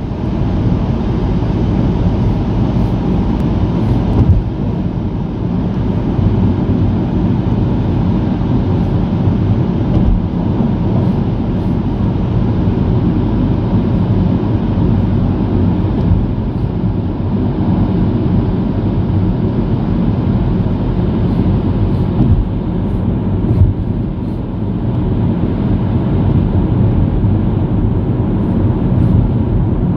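Steady low rumble of a car's tyres and engine heard from inside the cabin while driving through a road tunnel.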